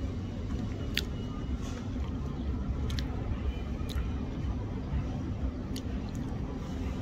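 A utensil clinking against a bowl a handful of times during eating, short sharp clicks over a steady low background rumble.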